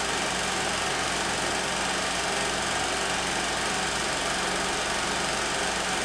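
16mm film projector running: a steady mechanical whirr with a rapid, even clatter.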